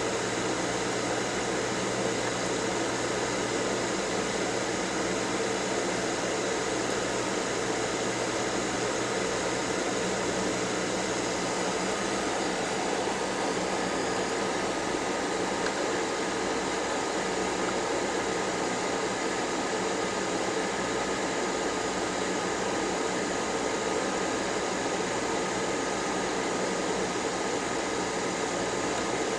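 Hot air rework gun blowing steadily, a constant rush of air with a faint steady whine from its fan.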